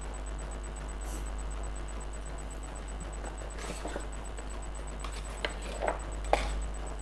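A few light clicks and taps from handling the power-supply wiring and connectors, the sharpest near the end, over a steady low electrical hum.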